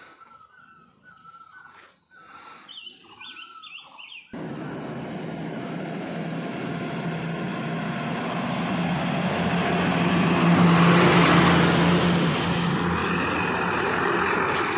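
Small birds chirping in short high phrases, then a road vehicle's engine and tyres cut in suddenly about four seconds in, growing louder to a peak and easing off as it passes on the highway, drowning the birds.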